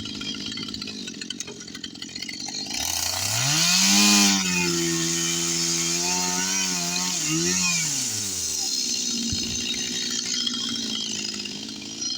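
Two-stroke chainsaw revved up about three seconds in, held at high revs for several seconds, then let back down, with another quick rev at the very end.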